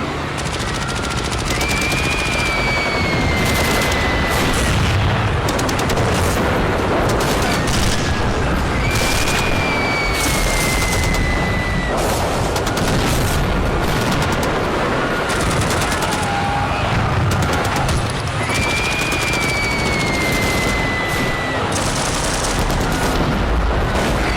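Sustained heavy machine-gun and rifle fire, a dense crackle of shots that never lets up. Three times, long high cries rise over it and slowly fall in pitch: screaming.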